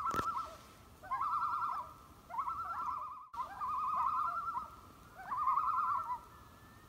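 A bird's quavering call: a rapid wavering on one pitch, given in five phrases about a second apart.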